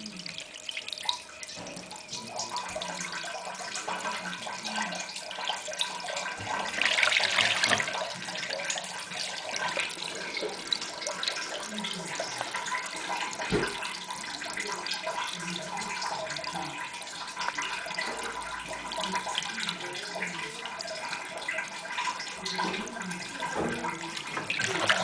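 Water running and trickling steadily, with scattered small clicks and knocks and a louder rush about seven seconds in.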